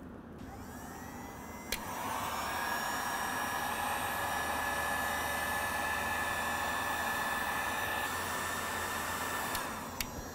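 Handheld heat gun clicks on about two seconds in and runs steadily, a fan hiss with a high whine, while shrinking heat-shrink butt connectors on wiring, then shuts off near the end with a click.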